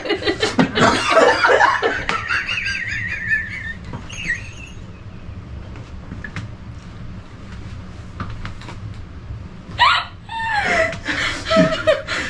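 People laughing hard, the laughter trailing off about three to four seconds in. A quieter stretch with a few faint clicks follows, and laughter or voices start up again near the end.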